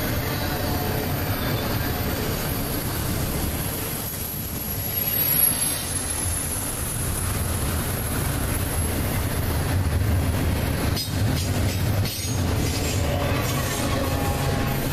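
Double-stack intermodal well cars rolling past on steel rails: a steady low rumble of wheels, with thin high-pitched wheel squeal and one brief louder knock about five seconds in.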